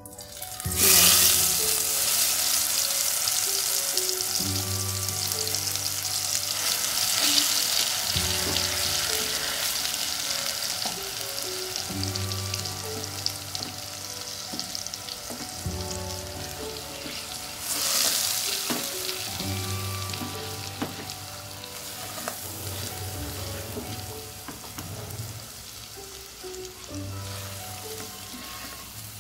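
Garlic and red chilli paste hitting hot oil in a pot and sizzling loudly, then frying with a steady sizzle as it is stirred with a silicone spatula. The sizzle flares up again just past the middle and slowly dies down toward the end.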